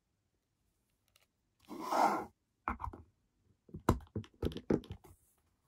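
Hard plastic figure parts rubbing and clicking together as the figure is assembled and its feet are pressed onto its plastic display base. A short scraping rub comes about two seconds in, then a string of sharp plastic clicks and knocks.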